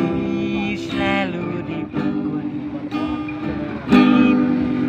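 Acoustic guitar strumming chords under a singer's voice, with long wavering sung notes about a second in and again near the end.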